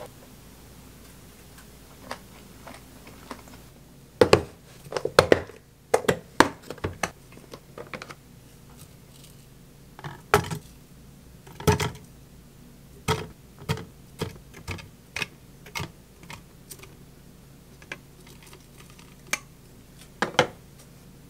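Metal tongs clicking and chunks of chilled watermelon knocking into a clear plastic blender cup: a run of sharp clicks and knocks in small clusters.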